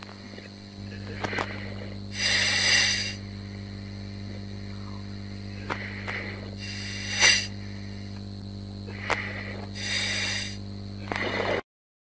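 Steady electrical hum on an underwater recording, with three bursts of hiss a few seconds apart and scattered sharp clicks; it cuts off abruptly near the end.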